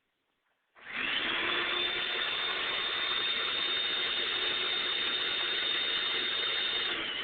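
Electric vacuum cleaner switched on about a second in: its motor whine climbs quickly to a steady high pitch over a rush of air, and starts to drop in pitch near the end.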